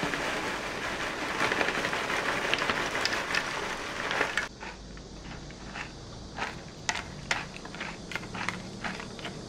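Small chocolate cereal balls pouring from a crinkling plastic pouch into a plastic yogurt cup, a dense rattling patter that stops suddenly about four and a half seconds in. After that a metal spoon stirs in the plastic cup with scattered light clicks and taps.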